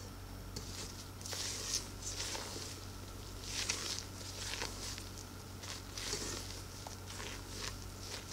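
Red silicone spatula folding whipped egg whites into almond-flour batter, scraping and swishing against the sides of a stainless steel bowl in soft strokes about once a second.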